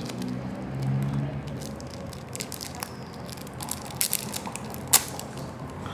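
Small plastic clicks and scrapes from a basic button mobile phone being handled and its back cover pried open. The clicks come scattered through the second half, with one sharper click near the end.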